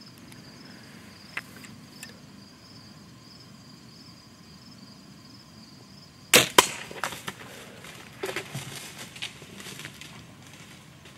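Insects trilling steadily, then about six seconds in a bow shot: the sharp snap of the bowstring and the arrow smacking into a whitetail buck, followed by the deer crashing off through brush and leaves.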